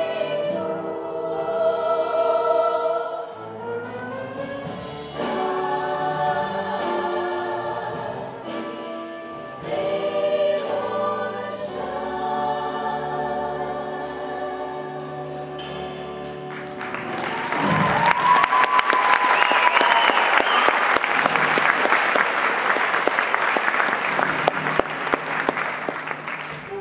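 All-female show choir singing in chords, closing on long held notes. About two-thirds of the way through, the audience breaks into loud applause and cheering that runs on while the singers hold their final pose.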